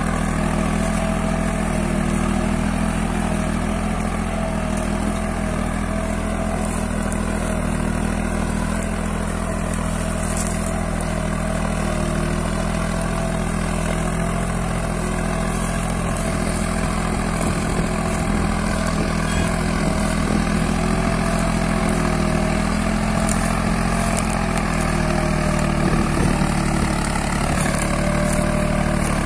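Deutz-Fahr Agrolux 70 tractor's diesel engine running steadily under load as it pulls a three-bottom mounted plough through the soil.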